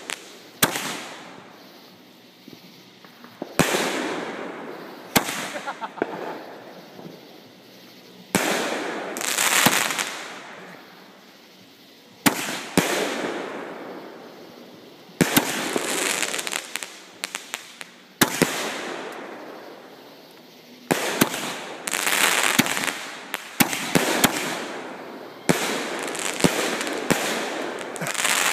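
Aerial fireworks bursting one after another: a sharp bang every few seconds, each followed by a hiss that fades over a second or two. In the second half the bangs come faster and overlap, several in quick succession.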